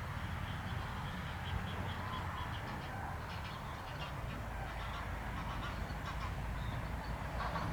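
A resting flock of common cranes and greylag geese calling, with many short honking calls overlapping throughout. A steady low rumble runs underneath.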